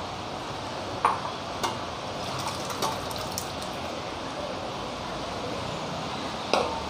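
Cooked toor dal poured from a steel pressure cooker into a steel bowl: liquid pouring and splashing, with sharp metal clinks of pot against bowl, the loudest about a second in and near the end.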